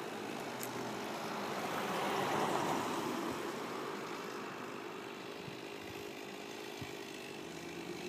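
A steady engine drone that swells louder about two to three seconds in and then eases back.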